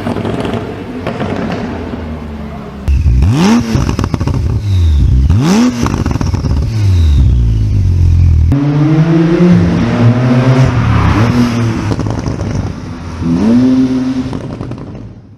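Performance car engines revving, with exhaust pops and crackles on the overrun, across three short clips in a row. First the revs fall away. Then come two sharp throttle blips about two seconds apart, each followed by crackling as it drops. Then more revving, with a last blip near the end, where the sound cuts off.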